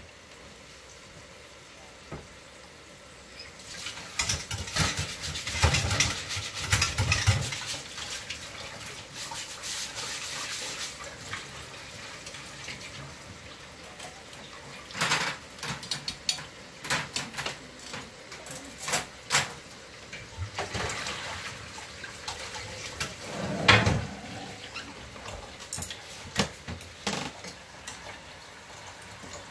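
Water running from a kitchen tap into a steel sink for several seconds, then scattered knocks and clatters of kitchen utensils and pans.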